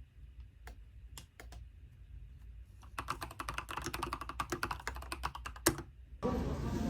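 Typing on a mechanical keyboard: a few separate keystrokes, then a quick run of rapid keystrokes that stops abruptly. A louder, steady background noise comes in near the end.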